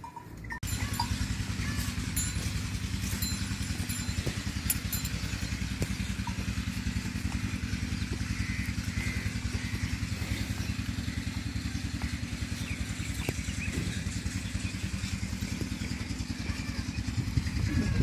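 A small engine running steadily with a fast, even low throb, starting abruptly about half a second in.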